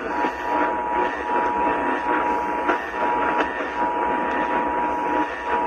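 Emergency Alert System attention signal: the two-tone alarm chord starting abruptly and held steady, heard through a heavy hiss of noise from a weak, poorly received broadcast signal.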